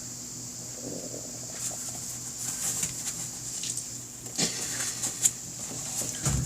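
Small metal parts of a motorcycle carburetor being handled: scattered light clicks and ticks of screws, washers and tools, with a sharper click about five seconds in, over a steady electrical hum.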